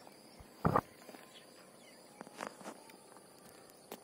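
Water splashing and sloshing close to the microphone while a hooked fish is fought from chest-deep water: one short loud thump about two-thirds of a second in, then softer splashes around two and a half seconds, and a light click near the end.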